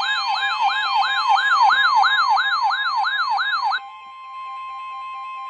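Emergency alert siren: an electronic tone sweeping upward and dropping back about three times a second, over a steady high alert tone. The sweeping stops a little before four seconds in, leaving the steady alert tone sounding alone.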